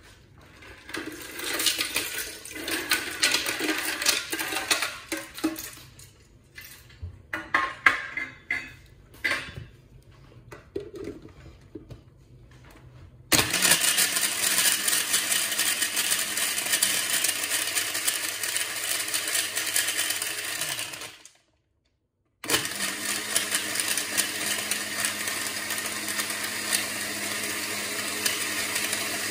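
Panasonic countertop blender crushing ice for a smoothie. For the first dozen seconds there is irregular rattling and crunching. Then the motor runs at a steady high speed, blending the mix smooth, and cuts out for about a second about three-quarters of the way through.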